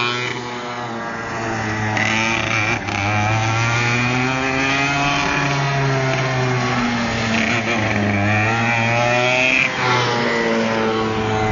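Go-kart engine running hard, its pitch rising and falling several times as the kart speeds up and slows through its laps, with a sharp drop in pitch near the end.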